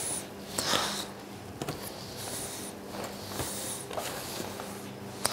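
Bare hands mixing a dry Christmas pudding mixture of dried fruit and breadcrumbs in a stainless steel bowl: repeated rustling swishes, roughly one a second, over a steady low hum.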